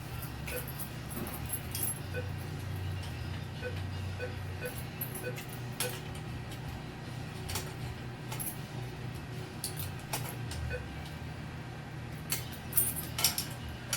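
Scattered light clinks and rattles of hard parts and items being handled while a toy vending machine is opened and restocked, over a steady low hum, with a quick run of louder clinks near the end.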